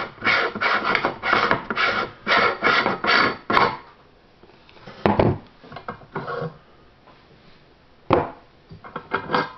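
Cast-iron parts of an antique Enterprise No. 32 meat grinder rasping against each other in quick strokes, about three a second, as it is taken apart by hand; the rasping stops after a few seconds, followed by a couple of sharp metal knocks and a few more scrapes near the end.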